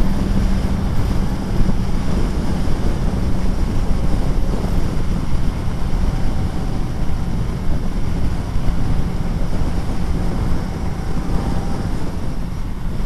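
Steady wind rush over the microphone at highway speed. Beneath it, the Suzuki B-King's 1340 cc inline-four engine runs at an even cruise, a low hum that is quiet for such a fast bike.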